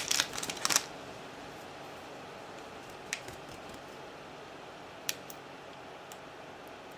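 Plastic packaging crinkling briefly as a makeup brush is unwrapped, then a few faint light clicks and taps over a steady low hiss.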